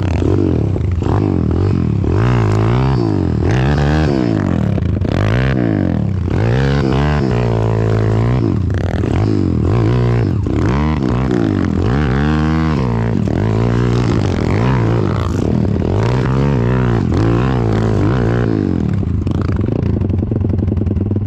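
190cc pit bike engine revved over and over as the rider works the throttle, its pitch rising and falling back about once a second over a steady low running note.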